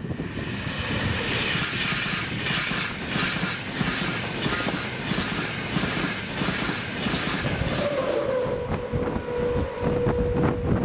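A train passing at speed on the East Coast Main Line: continuous rushing wheel-on-rail noise with rapid clicking. A steady tone comes in about eight seconds in.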